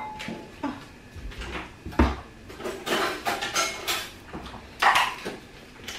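Kitchen clatter of dishes, utensils and cupboard doors being handled: a string of irregular knocks and clinks, loudest about two seconds in and again near five seconds.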